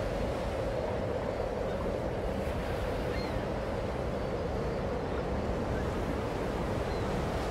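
Steady, even rushing noise with no pitch, and a few faint, short, high chirps now and then.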